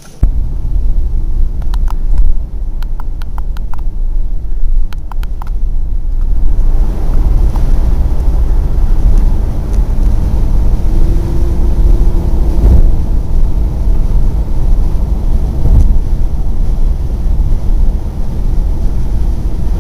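Car driving at highway speed, heard from inside the cabin: a loud, steady low rumble of engine and tyres on the road, which grows fuller after about six seconds. A row of light clicks sounds during the first few seconds.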